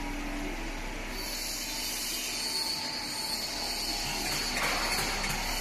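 Stainless-steel bubble vegetable-washing machine running: steady mechanical noise, with a high whine and hiss setting in about a second in.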